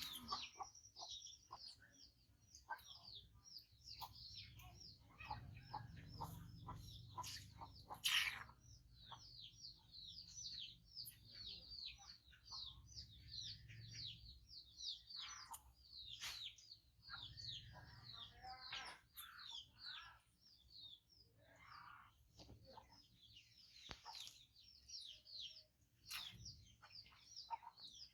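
Birds chirping continuously in a dense run of short, high chirps that fall in pitch, with scattered soft clicks and one sharp knock about eight seconds in.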